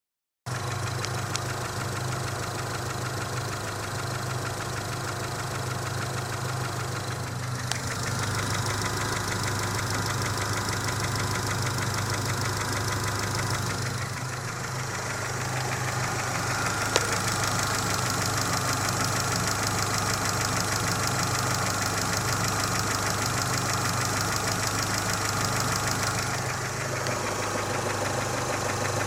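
Mitsubishi 4G63T turbocharged four-cylinder engine running at a steady speed with a rhythmic knock running through it; this knock is the fault being shown.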